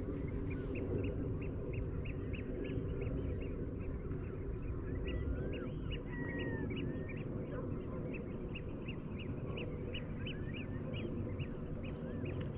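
A flock of waterbirds calling: a continuous run of short, high, piping calls at about three a second, mixed with scattered whistled calls, over a steady low rumble.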